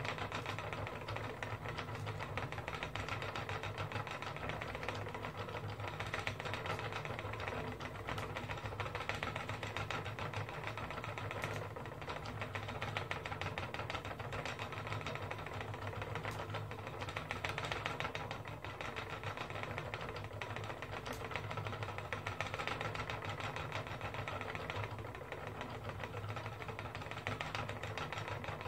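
Wooden treadle spinning wheel running steadily as wool is spun into yarn: a continuous mechanical whir with dense, rapid ticking.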